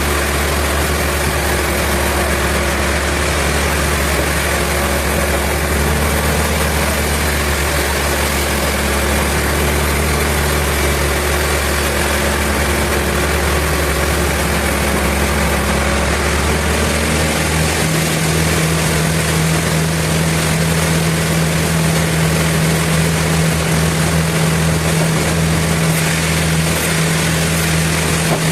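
Sawmill machinery running with a steady engine-like drone; about two-thirds of the way through the pitch pattern shifts and a stronger low hum sets in.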